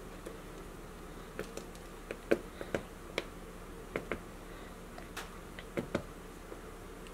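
Irregular light taps and clicks of fingers and jalapeño pepper rings against a cutting board as the seeds are pushed out by hand, the sharpest a little over two seconds in.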